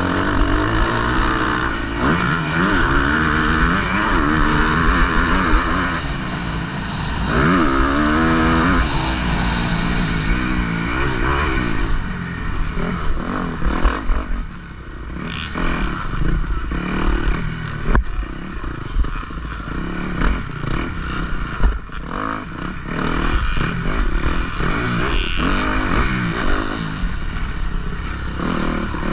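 Motocross bike engine revving up and down repeatedly as it is raced, heard from the rider's helmet, with rushing wind noise and knocks and clatter over the rough track.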